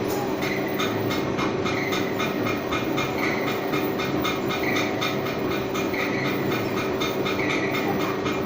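CNC lathe running: a steady mechanical hum with a rapid, even ticking and short higher squeals now and then.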